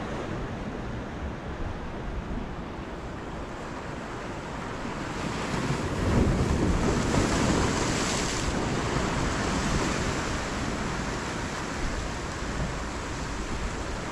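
Surf breaking and washing up the beach, with wind buffeting the microphone. A wave surges louder about six seconds in and eases off after a few seconds.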